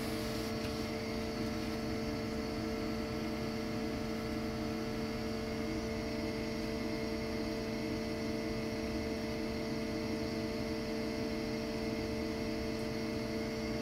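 Steady hum of running machine-shop machinery: a low drone with several held tones above it, even and unchanging.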